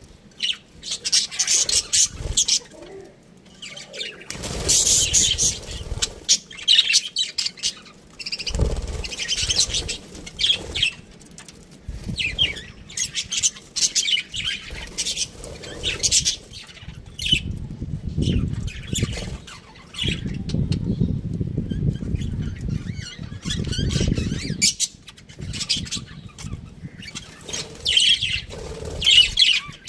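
Budgerigar chirping and warbling in quick, high, broken runs of notes, with spells of low rustling noise several times through.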